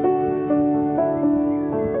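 Slow, gentle piano music: sustained notes ringing and overlapping, a new note roughly every half second.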